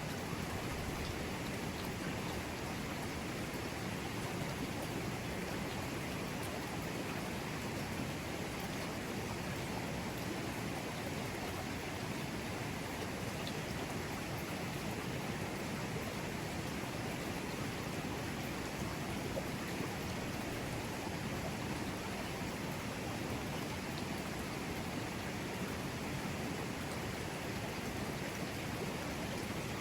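Mountain river water rushing steadily over rocks, an even, unbroken flowing sound.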